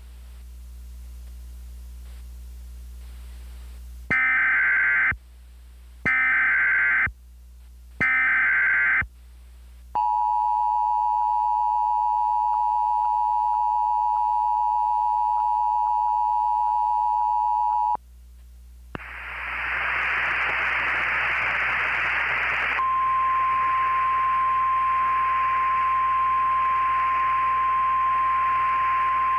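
Emergency Alert System sequence: three short bursts of SAME header data, then the two-tone EAS attention signal held steady for about eight seconds. After a brief gap, radio static rises and a single steady NOAA Weather Radio alert tone comes in over it near the end.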